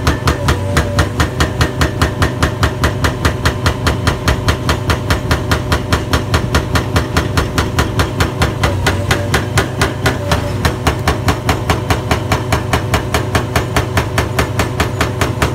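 NPK GH-18 hydraulic breaker on an excavator hammering its chisel into concrete rubble: a continuous run of rapid, evenly spaced blows, with the excavator's engine running steadily underneath.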